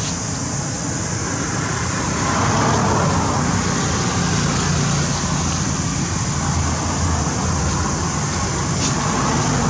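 Road traffic going by: a steady noise of passing vehicles that swells about two seconds in as a car drives past.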